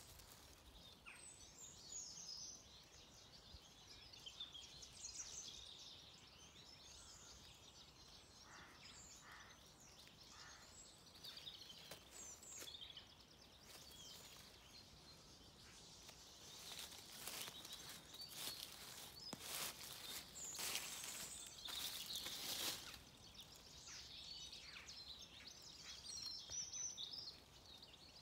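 Faint woodland birdsong: many small birds chirping and calling in short high notes. A few brief louder rustling noises come about two-thirds of the way through.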